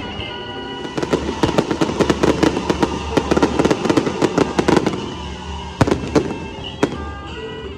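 A string of firecrackers crackling in a rapid dense stream for about four seconds, followed by a few separate louder bangs. Procession music with a reedy wind instrument plays under it at the start and end.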